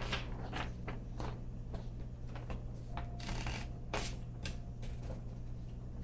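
Smith Corona Electra 220 electric typewriter being loaded with paper: a series of irregular mechanical clicks and rattles as the sheet is fed in and the platen rolled, over a steady low hum.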